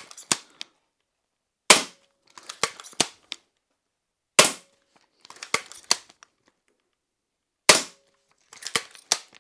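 Steambow Stinger II tactical crossbow fired three times, about three seconds apart. Each loud, sharp shot is followed by a quick run of clicks and clacks as the crossbow is recocked and the next bolt loaded from its magazine.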